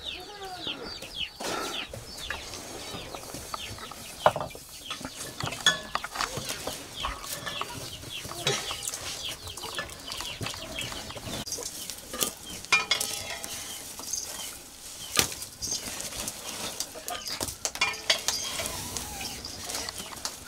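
Metal cookware and utensils clinking and scraping at a wood-fire hearth: pots, plates, a ladle and bowls being handled, in scattered sharp clinks.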